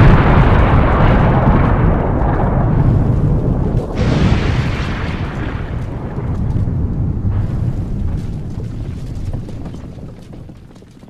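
Explosion sound effect dying away slowly, with a second, smaller burst about four seconds in, fading out near the end.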